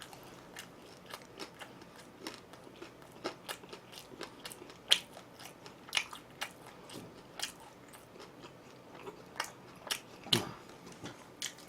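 Close-miked chewing of crunchy food: a run of irregular sharp crunches, a few a second, with a few louder bites.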